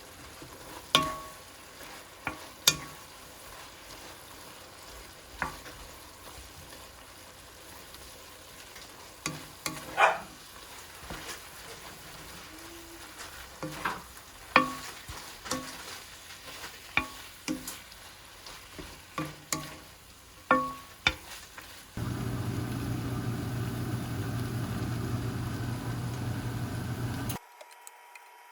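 Dishes and utensils clinking and clattering in a kitchen: a series of sharp knocks, each with a short ringing tone. A steady hum of an appliance comes in about three-quarters of the way through, runs for about five seconds, then cuts off suddenly.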